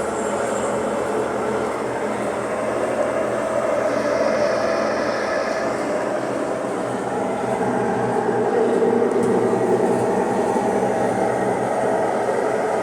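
Consul Maré washing machine in its spin cycle, running with a loud, steady mechanical noise, a fault the owner puts down to a worn transmission (câmbio) that needs replacing.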